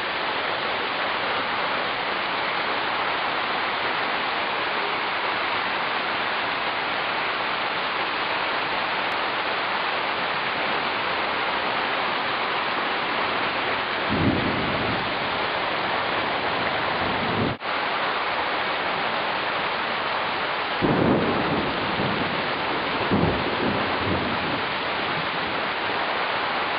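Steady roar of a heavy rainstorm and rushing storm water flooding the road, with short low rumbles about halfway through and twice more near the end.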